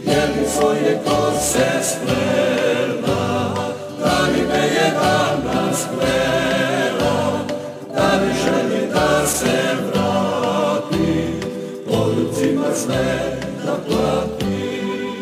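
Music: a choir singing slow, sustained phrases with vibrato, a new phrase starting about every four seconds.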